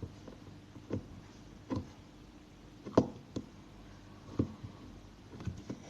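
Light knocks and clicks of small objects handled and set down on a tabletop, about seven scattered over a few seconds, the sharpest about halfway through.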